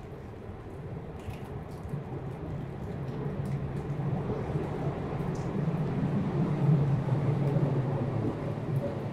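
A low rumble that swells over several seconds to a peak about seven seconds in and then eases off, with faint scattered ticks above it.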